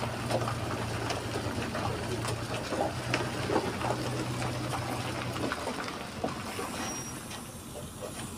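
Heavy truck hauling a precast concrete bridge girder on a multi-axle trailer, its engine running with a steady low hum while the trailer rolls past with scattered clicks and knocks. The engine hum drops away about five and a half seconds in.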